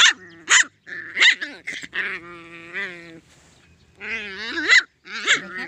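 Puppy giving short sharp yelping barks, with a long drawn-out whine in the middle and a rising whine near the end.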